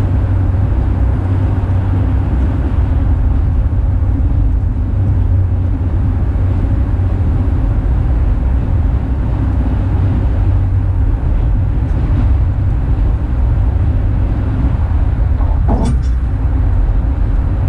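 Steady drone of a car driving at highway speed, heard from inside the cabin: engine and tyre noise.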